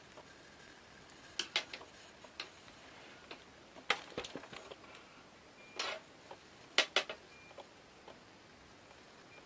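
Irregular light clicks and taps of handling a carbon fishing rod with a metal joint sleeve on a wooden work board, about a dozen spread unevenly, the loudest near the middle.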